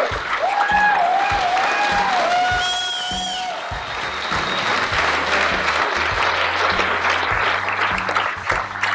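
Audience applauding, with a few whoops of cheering in the first three seconds or so, over background music with a steady low beat.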